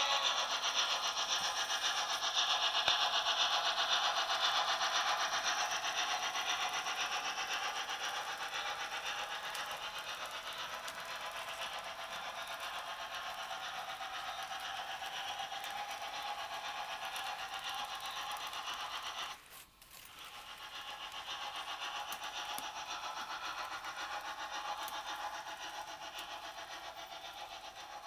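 Märklin H0 model train running along the layout track: a steady rattling run of wheels and motor. It drops out briefly about two-thirds of the way through and fades near the end.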